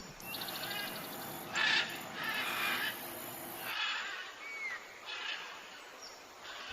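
Bird calls: a string of short calls, some half a second long, with a brief rising chirp partway through.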